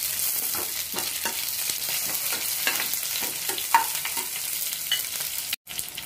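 Onion, green chillies and capsicum sizzling in hot oil in a kadhai while a steel ladle stirs them, with frequent light scrapes and knocks of the ladle against the pan. The sound cuts out for an instant near the end.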